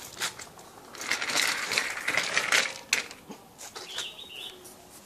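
Scuffling, crunching clicks of movement over rough ground, thickest from about one to three seconds in, with a faint short high chirp about four seconds in.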